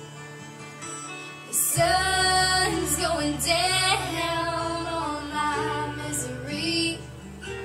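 A woman singing a slow song over an instrumental backing track, whose low bass notes hold and change pitch every second or so. The voice grows loud about two seconds in, with a wavering vibrato on a held note.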